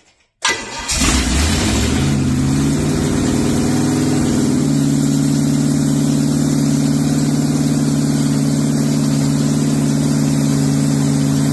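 Freshly rebuilt Pontiac 389 V8 on an engine run stand starts up about half a second in. It catches, runs up, and settles into a steady run that holds even from about four and a half seconds on.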